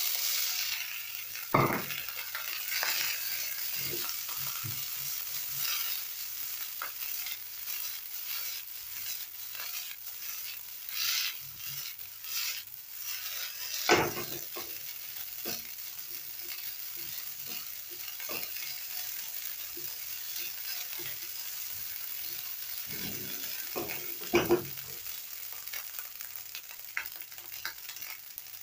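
Leftover cooked rice sizzling in hot oil in a speckled stone-coated nonstick frying pan as a spatula stirs and tosses it, with steady scraping and a few louder knocks of the spatula against the pan.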